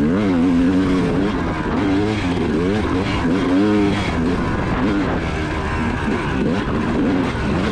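Yamaha 250 two-stroke dirt bike engine under way, its pitch rising and falling over and over as the rider works the throttle and shifts.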